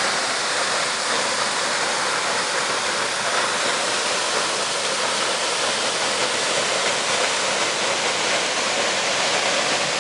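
Steady, even rushing of a river pouring over the lip of a waterfall.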